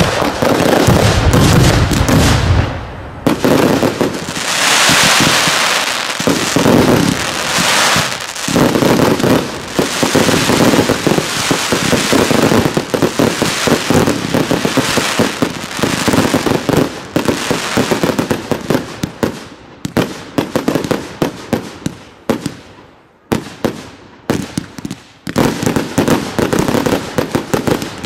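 Daytime fireworks in a dense barrage of launches and air bursts: rapid bangs and crackling. There is a heavy low rumble in the first couple of seconds, a stretch of dense hiss a few seconds later, and a brief lull near the end before the bangs resume.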